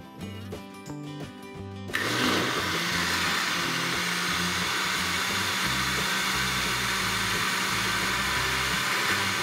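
Countertop blender switched on about two seconds in and running steadily at high speed, blending a cornmeal cake batter. Background music plays throughout, alone before the blender starts.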